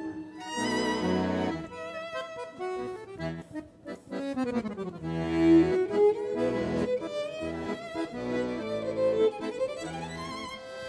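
Violin and button accordion playing a tune together, with notes that waver and slide.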